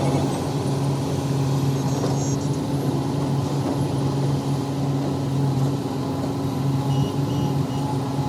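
Heavy diesel engine of construction machinery running steadily at an even pitch, with three short high beeps near the end.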